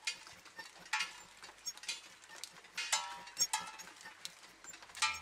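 Livestock bells clanking irregularly, single ringing strikes a second or so apart, with a quick cluster of three a little past the middle.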